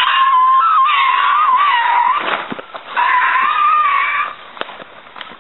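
Two long, loud, high-pitched screams, wavering in pitch. The first lasts about two seconds; the second starts about a second after it ends and is shorter.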